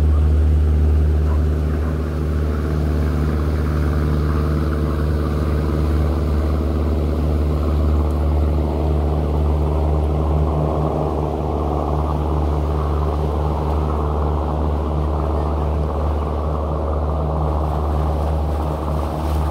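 Steady low engine drone holding one unchanging pitch, with a rushing noise that fills out about halfway through.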